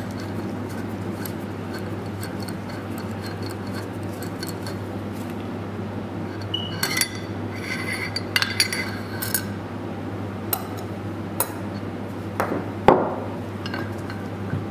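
Metal hand tools clinking and clicking against a pneumatic cylinder's tie-rod nuts as an Allen key and an 8mm driver bit loosen them. The clinks are scattered and come thickest about seven to nine seconds in, with one louder metallic knock near the end, over a steady low hum.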